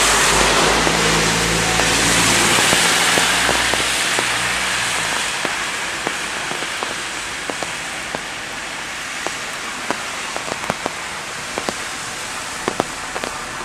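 A car drives through water on a flooded street: engine hum and the hiss of tyre spray for the first few seconds. Then it fades into steady rain with single drops ticking close by.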